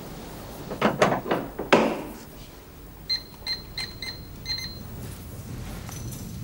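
A few sharp knocks and clatters about a second in, then five short, high electronic beeps from a wall-mounted alarm keypad as a code is keyed in.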